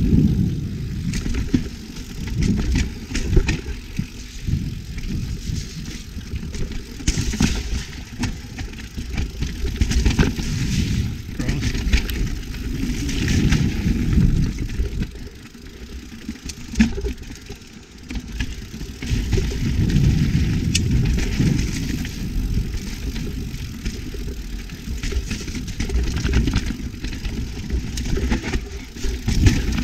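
YT Capra mountain bike descending a rough trail: wind buffets the microphone while the tyres roll over dirt and roots, with rattling and sharp knocks from the bike. The noise eases briefly about halfway through.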